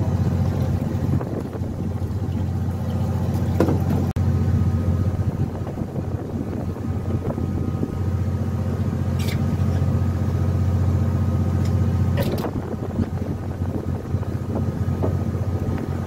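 Fishing boat's engine running with a steady low hum, and a few short knocks on deck about a quarter, half and three-quarters of the way through.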